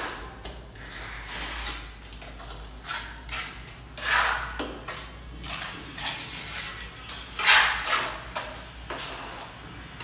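Wet cement mortar being thrown by hand onto the side of a concrete staircase and worked with a trowel: irregular splats and scrapes, the loudest about four and seven and a half seconds in.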